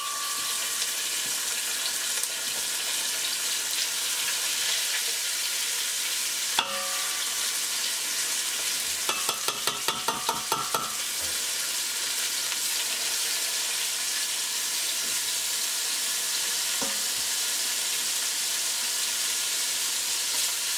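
Chicken wings frying in hot oil in a pot, a steady sizzle. A single knock comes about six and a half seconds in, and a quick run of about ten clicks around the middle.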